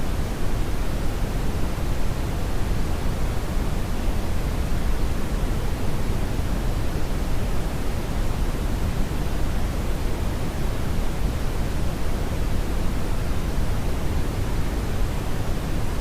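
Brownian noise: a steady, even rushing hiss, heaviest in the deep low end and falling away toward the highs, with no changes or events.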